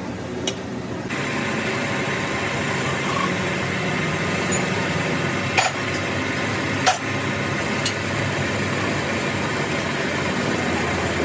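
Metal lathe starting up about a second in and then running steadily, spinning a truck differential spider cross in its four-jaw chuck. A few sharp metallic knocks sound over the running.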